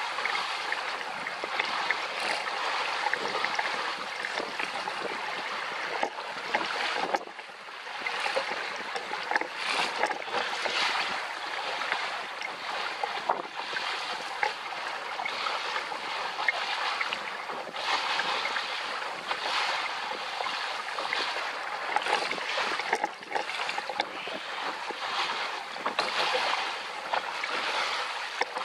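Water rushing and splashing along the hull of a JY15 sailing dinghy under way, surging unevenly, with a brief lull about seven seconds in.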